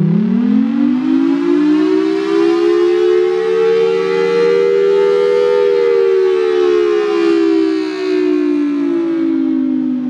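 Federal Sign & Signal Thunderbolt 1003 siren, its two close tones sounding together as a chord. It winds up from a low pitch to a peak about halfway through, then winds slowly back down in one long wail.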